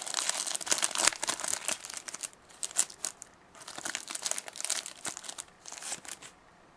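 Wrapper of a hockey trading card pack crinkling as it is torn open and crumpled, a run of close crackles with a couple of short pauses.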